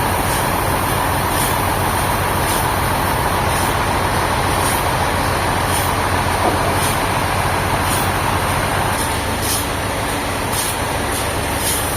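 Sawmill machinery running steadily under load, a saw working through a log; the higher cutting hiss fades out about nine seconds in while the low machine rumble carries on.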